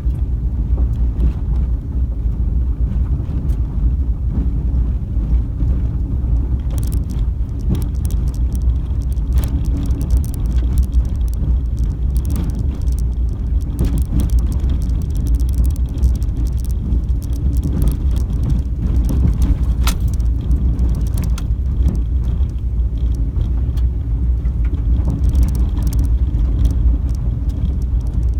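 Car driving along an unpaved dirt road, heard from inside: a steady low rumble of engine and tyres, with many scattered clicks and rattles from the rough surface.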